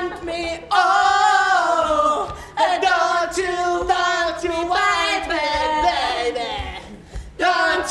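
Voices singing unaccompanied: long held notes that waver up and down in pitch, breaking off briefly twice.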